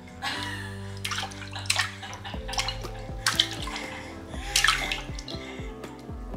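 A baby's hand slapping and splashing in the water of a ceramic dog water bowl, repeated small splashes at irregular intervals, over background music.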